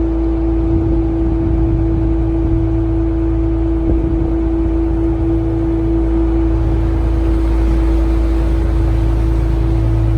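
Canal tour boat's engine running steadily: a constant low rumble with a steady hum tone over it.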